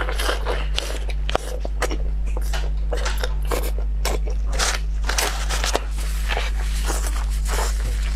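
Close-miked eating: biting and chewing with irregular crunches and wet crackles, over a steady low electrical hum.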